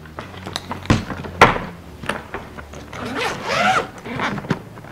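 A hard-shell wheeled suitcase being handled: two sharp knocks, then its zipper drawn open over about a second near the end.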